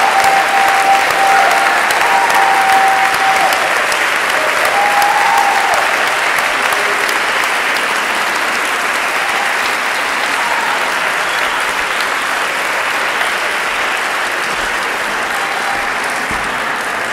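Audience applauding steadily, slowly fading toward the end.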